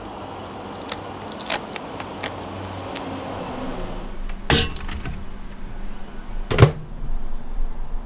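Plastic packaging of a frozen meal tray crinkling and clicking as it is handled, then two knocks about two seconds apart, the second the loudest, as the tray is put into a microwave oven and its door shut.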